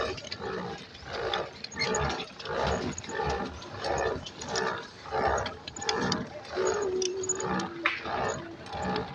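Pedal boat being pedalled: a steady rhythmic sound about one and a half strokes a second, with a brief steady squeak-like tone near the end.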